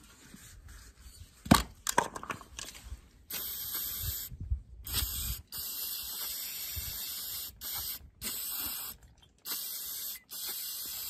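Aerosol carburetor cleaner hissing as it is sprayed onto a disassembled carburetor, in about seven bursts of uneven length with short breaks, starting about a third of the way in. Before that come a few knocks from handling, the loudest a sharp one about one and a half seconds in.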